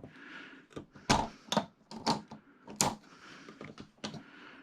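About half a dozen sharp, irregular clicks and taps of plastic TV parts being handled and worked free at their clips and tabs.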